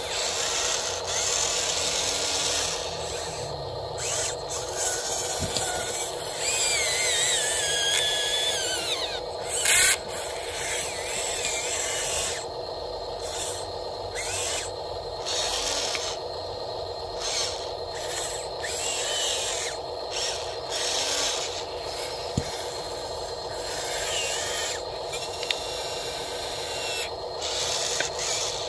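Electric motors and plastic gearboxes of an RC Volvo excavator whining and grinding in short runs as it swings and digs into dirt, the whine rising and falling in pitch partway through. A single sharp clack about ten seconds in.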